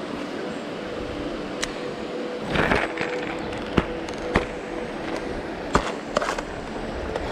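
Steady rush of a shallow river running over stones, with a handful of sharp clicks and knocks from the angler handling gear on the pebbles, the last ones as a clear plastic lure box is brought out and opened.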